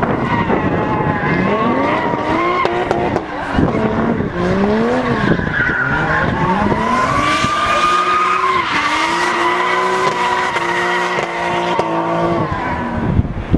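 Drift car's engine revving hard. Its pitch swings up and down at first, then is held high as the rear tyres squeal through a long smoky slide, until the revs drop near the end.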